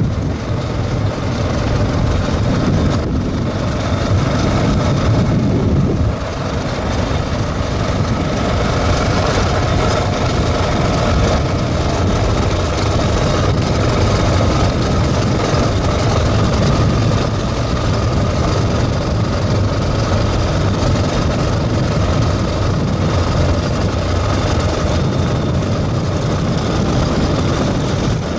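Motorcycle riding along a dirt road: the engine running steadily under a constant rushing noise of wind and travel.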